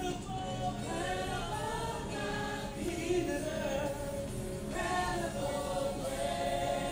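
Gospel song with choir singing, sung in phrases over a steady musical backing.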